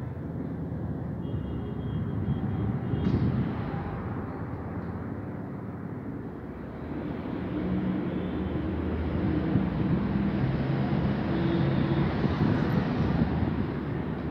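Street traffic noise: a steady rumble of passing vehicles, getting louder in the second half.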